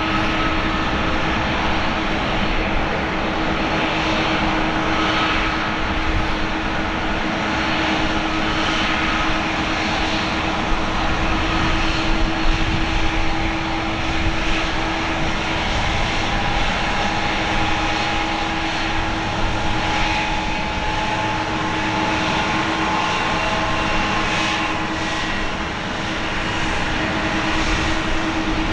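Boeing 777-200ER's twin jet engines running at low power as the airliner taxis: a steady rushing noise over a constant low hum.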